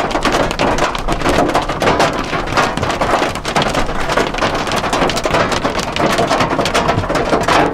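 Hail pelting hard and without let-up on the Mitsubishi Fuso FG140 expedition truck: a dense, loud patter of countless small impacts.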